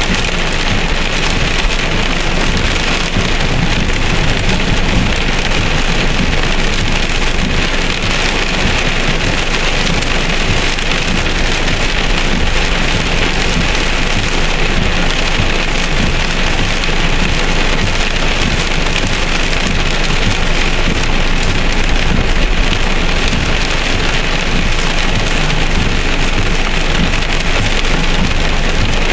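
Heavy rain pelting a car's windshield and body, heard from inside the car as a steady, dense hiss.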